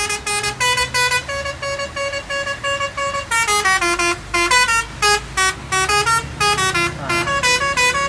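Multi-tone telolet (basuri) air horn on a Scania lorry playing a tune of short blasts at changing pitches: a run of even notes, then quicker falling runs of notes.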